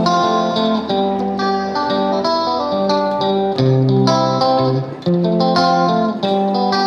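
Background music: a plucked guitar playing a melodic, rhythmic pattern.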